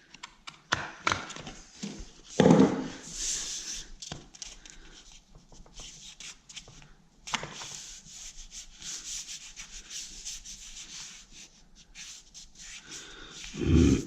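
Wet lining paper being cut with scissors and rubbed down against the wall around a plug socket: scattered snips and rustles, with a louder bump about two and a half seconds in and a stretch of steady rubbing in the middle.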